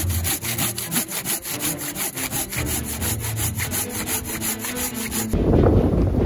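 Hand saw cutting through a downed pine log in quick, even strokes that stop about five seconds in.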